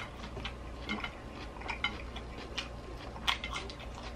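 Metal fork clinking and scraping against a glass salad bowl: a scatter of small irregular clicks, with one sharper clink about three seconds in.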